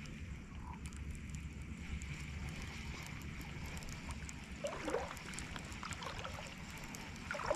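Wind rumbling on the microphone, with two small water splashes about five seconds in and just before the end.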